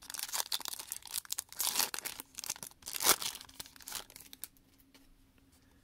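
Foil wrapper of a Panini Select basketball card pack torn open and crinkled by hand, a dense crackling rustle that stops about four seconds in.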